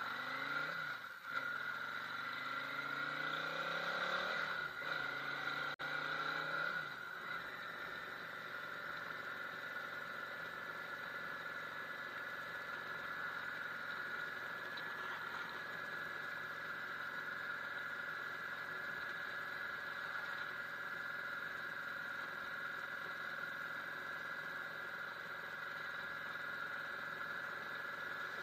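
Yamaha V Star 650's air-cooled V-twin engine pulling away, its pitch rising and falling several times over the first several seconds as it goes through the gears, then running steadily at cruising speed, heard from a helmet-mounted camera.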